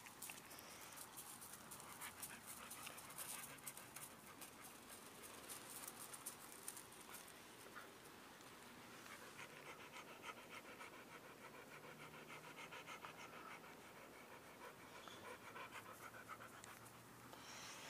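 A Siberian Husky panting faintly.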